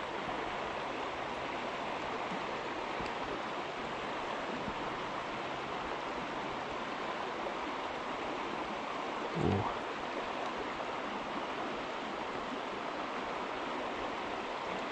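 Small stream flowing, a steady even rush of water. One brief low sound breaks in about nine and a half seconds in.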